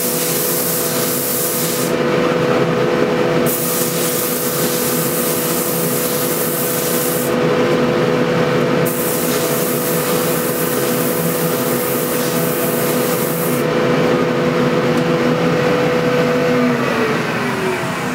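Sandpaper hissing against a walnut rolling pin spinning on a wood lathe run in reverse, over the steady hum of the lathe and dust collector; the hiss stops and starts as the paper is lifted and pressed on again. Near the end the motor's hum slides down in pitch as the lathe winds down.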